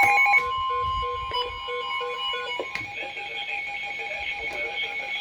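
Emergency Alert System alert tones on a broadcast: steady electronic alarm tones, loudest for the first half second, then a single steady tone with short repeating beeps, and a different set of tones from about three seconds in.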